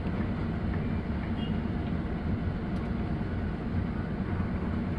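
Heavy diesel engine of earthmoving machinery running steadily: a deep, even rumble with no change in pace.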